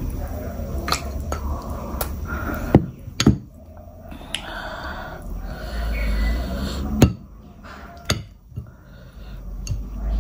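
Bare fingers squishing and mixing rice with wet mutton curry on a plate, with a few sharp clicks of plates and bowls being knocked or set down, loudest about three seconds in and again about seven seconds in.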